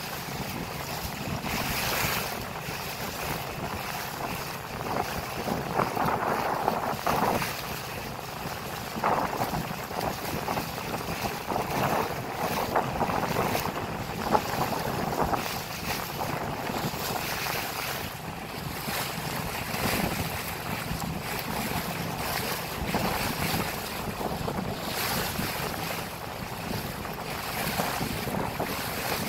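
Wind buffeting the microphone over the rush of water from a boat under way, rising and falling in gusts.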